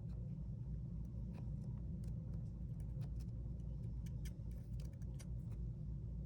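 Small pick scraping and picking lint out of an iPhone 8 Plus Lightning charging port: a scatter of faint, brief clicks and scratches over a steady low rumble.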